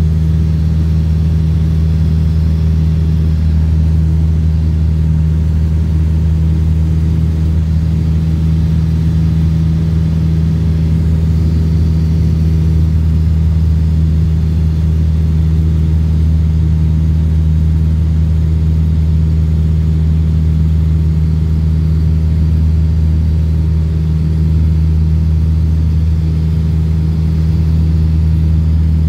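Light aircraft's engine droning steadily in level flight, heard inside the cabin as a deep, even hum.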